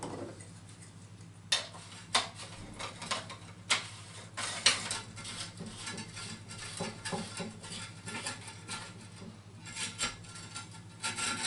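Irregular clicks, taps and knocks of hard plastic parts being handled and fitted at a toilet cistern's outlet while a Fluidmaster flush valve is installed, with a few sharper knocks in the first five seconds.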